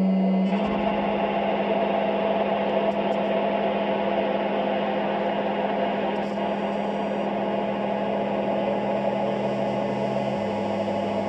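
Live noise music: a dense, steady electronic drone with a held low tone. A deeper bass note steps down in pitch about ten seconds in.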